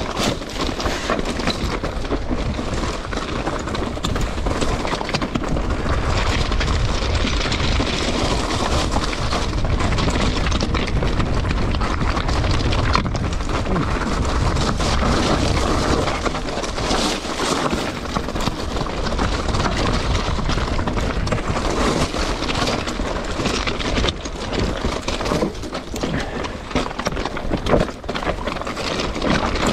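Mountain bike riding down a loose slate and scree track: tyres crunching over stones and the bike rattling in a continuous dense clatter, heard from a camera on the handlebars, with a strong low rumble.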